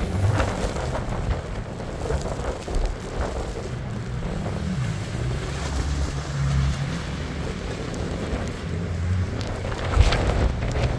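Wind buffeting the microphone over a Nissan R50 Pathfinder's V6 engine, running at low revs as the SUV drives slowly across a snowy lot.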